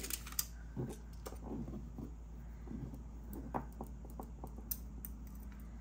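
Light handling noises with scattered small clicks: beads and small plastic bead trays being moved about and a half-strung bead necklace on beading wire being lifted, over a steady low hum.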